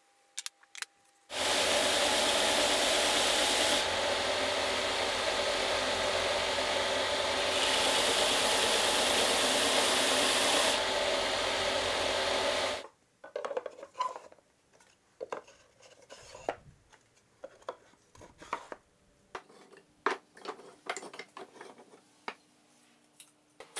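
Carba-Tec belt-and-disc sander running, a wooden box pressed against it as its faces are sanded, a steady loud sanding noise over a motor hum that stops suddenly just before the halfway point. After that, scattered light knocks and clatter of wooden offcuts being handled.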